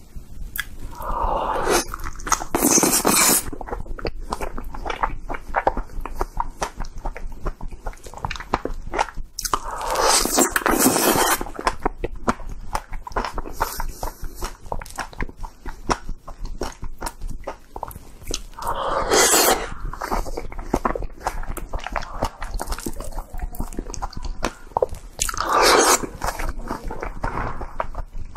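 Close-miked eating of a raw green guava: four loud crunching bites spaced several seconds apart, with steady wet chewing between them.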